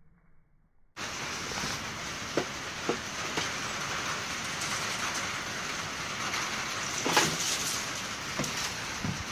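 Steady rain falling on a wooden deck, starting abruptly about a second in, with a few light knocks scattered through it.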